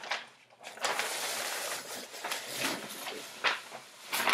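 A large sheet of chart paper rustling and crinkling as it is lifted and folded back on the wall. There is a dense rustle in the first half, then a few sharper crackles.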